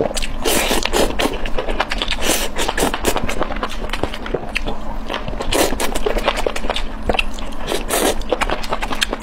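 Close-miked chewing and wet mouth sounds of someone eating squid off skewers: a dense, irregular run of quick smacks and clicks.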